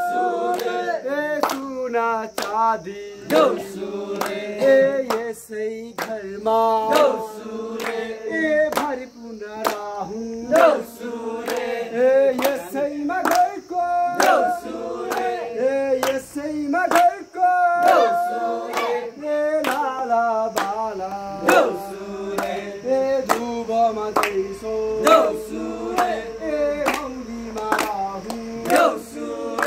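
A group of men sing a Nepali Deusi festival song together, with a steady beat of hand claps about twice a second.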